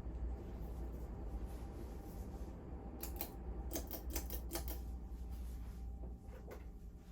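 Emerson Crown ceiling fan running with a steady low hum. About three seconds in comes a quick run of light clicks, with one more near the end.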